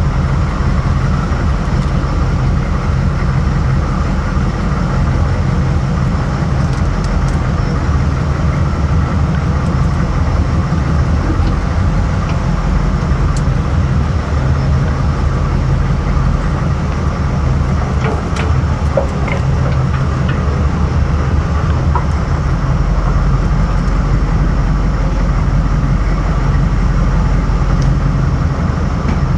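AM General M998 Humvee's V8 diesel engine running with a steady low drone, and a few faint clicks.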